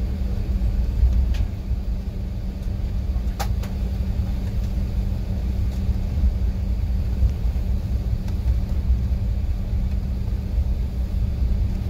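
Cabin rumble inside an Airbus A380 taxiing after landing: a loud, steady low rumble with a constant hum beneath it. A single sharp click sounds about three and a half seconds in.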